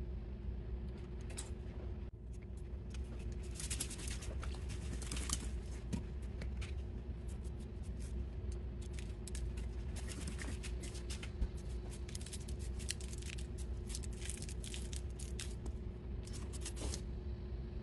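Everything bagel seasoning being sprinkled over unbaked French bread dough on a parchment-lined tray: clusters of light crackling ticks as the seeds land on dough and paper, over a steady low hum.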